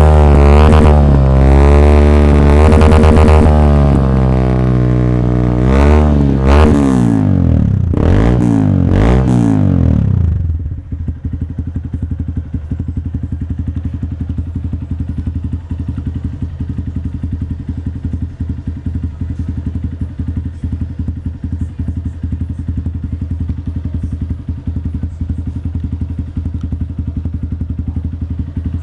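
A Honda Bros motorcycle's single-cylinder four-stroke engine running through a loud Coyote TRS Roncar aftermarket exhaust. It is revved up and down several times, ending in a few quick blips, then about ten seconds in it drops to a steady idle for the rest.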